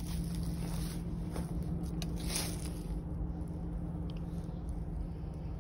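Footsteps crunching through dry fallen leaves, a few steps in the first couple of seconds, over a steady low hum.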